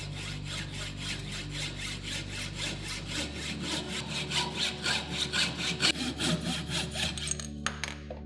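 Hacksaw cutting a bicycle fork's steerer tube through a steerer saw guide held in a vice: quick, even back-and-forth strokes, about five a second, growing louder past the midpoint. The sawing stops shortly before the end, leaving a few separate clicks.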